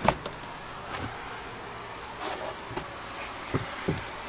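Carpeted boot floor panels of a car being laid back and pressed into place by hand: a sharp knock right at the start, then a few softer bumps and taps.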